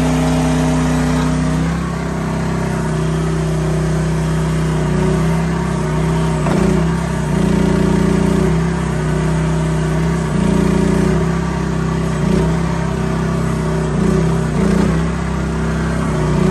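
Small Briggs & Stratton gas engine of a mini excavator running under hydraulic load as the machine is worked. About two seconds in its note drops slightly and stays lower, and after that the sound swells briefly several times as the controls are moved.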